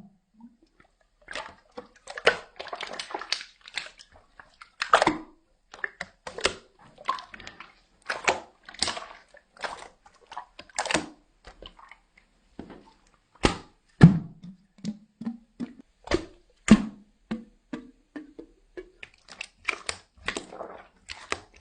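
Slime being squeezed and stretched by hand: irregular wet clicks, pops and squelches.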